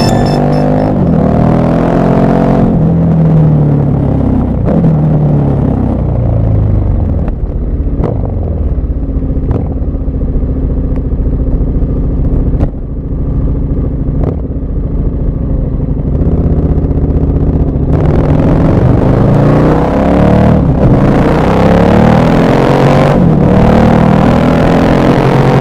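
KTM 1190 Adventure R's LC8 V-twin engine pulling through the gears, its revs rising and falling. It eases off to lower revs for several seconds in the middle, with a few sharp clicks, then pulls hard again near the end.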